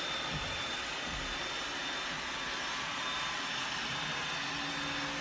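Robot vacuum cleaner running, a steady whir of its motor and brushes.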